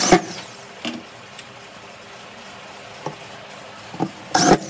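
Electric drill driving screws into a concealed cabinet door hinge: two short bursts, one right at the start and one near the end, the motor winding down after each, with a few light clicks in between.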